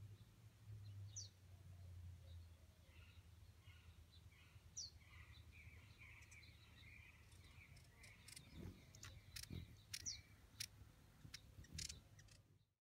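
Faint outdoor ambience with a few short, high bird chirps and scattered sharp clicks in the second half; the sound cuts off just before the end.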